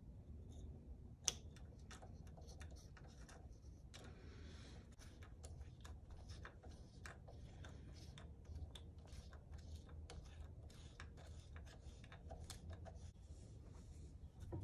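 Faint, irregular small clicks and taps of metal parts being handled and threaded on a RockShox rear shock damper held in a bench vise, with one sharper click about a second in.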